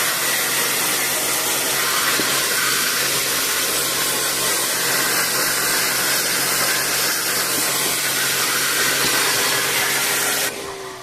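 High-pressure washer spraying water, a loud steady hiss of spray over a faint motor hum, cutting off near the end.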